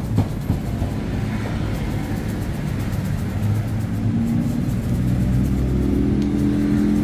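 A motor running with a low rumble, its pitch rising slightly about four seconds in, with a sharp knock right at the start.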